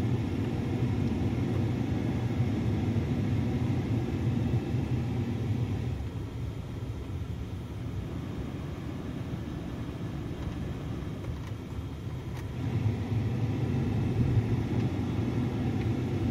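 2010 Dodge Ram's 5.7 Hemi V8 idling with the cab's heating and A/C blower running, a steady low rumble. It drops a little about six seconds in and comes back up around thirteen seconds. No rhythmic ticking is heard from the blend door actuator, which is now working properly.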